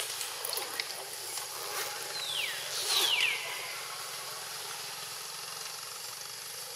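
A monkey crying: two short, high cries about a second apart, each falling steeply in pitch, the second ending on a brief held note. A steady hiss runs underneath, with a few faint clicks in the first second.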